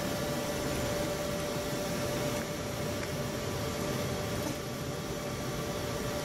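Mazak Multiplex 4200 CNC lathe running: a steady mechanical hum and hiss with a constant whine.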